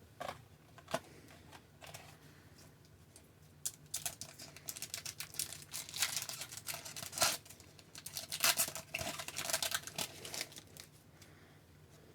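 A foil trading-card pack wrapper being torn open and crinkled, with cards handled, heard as a dense run of sharp crackles from about four seconds in until about eleven seconds.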